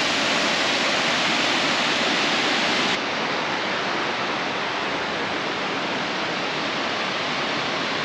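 Waterfall pouring into a gorge pool: a steady rushing of water. About three seconds in it drops slightly in level and loses its highest hiss.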